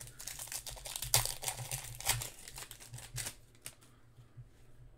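Foil wrapper of a trading-card pack being torn open and crinkled, a dense crackling for about three seconds that then dies down.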